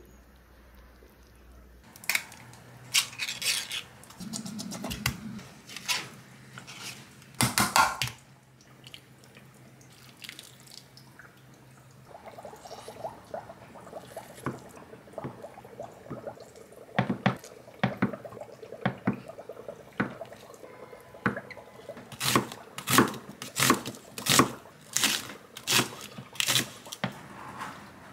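Kitchen knife cutting on a wooden cutting board: a run of sharp, evenly spaced knocks, about one and a half to two a second, in the second half, with scattered clinks and knocks before it.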